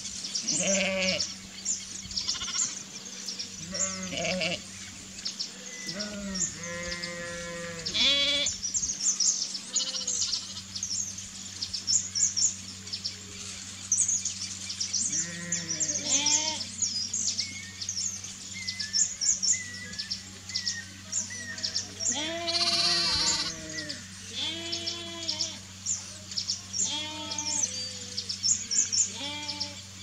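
Livestock bleating repeatedly, a dozen or so wavering calls spread across the stretch. Dense short, high chirps of small birds and a steady low hum run beneath.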